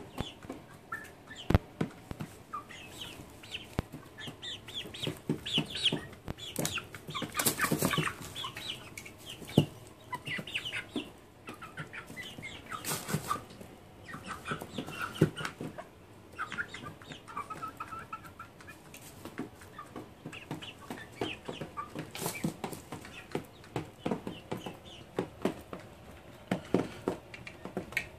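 Young chickens clucking and chirping, many short calls overlapping, with scattered clicks and rustles of pecking and scratching in wood shavings.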